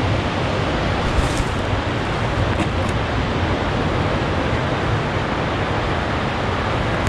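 Steady rush of ocean surf breaking along a rocky shore, mixed with wind buffeting the microphone.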